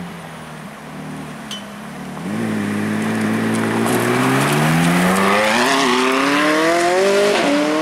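McLaren 675LT's twin-turbo V8 ticks over, then the car pulls away. The revs climb steadily for several seconds, with a brief dip near the end.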